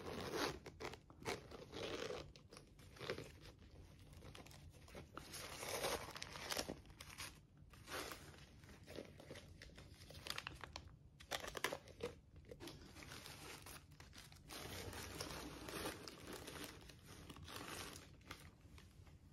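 Clear plastic wrapping and tissue paper crinkling and rustling in irregular bursts with short pauses, as a small leather-trimmed handbag and its wrapped chain are handled.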